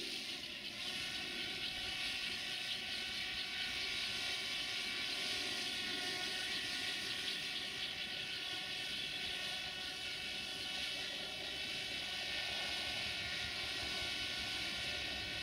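Drone's rotors humming steadily, a whine made of several steady pitches over a hiss, holding level throughout.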